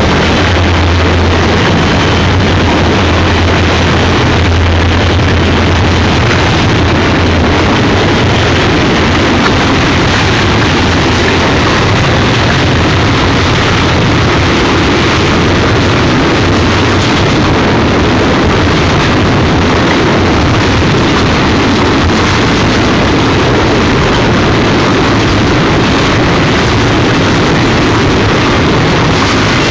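Freight train passing close by. Diesel locomotives working under load give a strong low drone for the first several seconds, then double-stack container cars roll past with a steady, loud rumble of wheels on rail.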